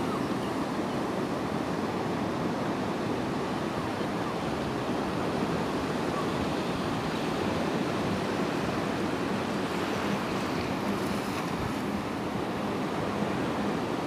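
Small sea waves breaking in the shallows and washing up a sandy beach: a steady surf noise.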